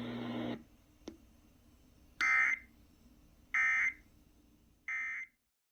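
Three short, harsh, buzzy data bursts of the Emergency Alert System's SAME digital code, about a second and a half apart: the End Of Message (NNNN) signal that closes the alert. Just before them the steady low hum under the broadcast cuts off and a single click is heard.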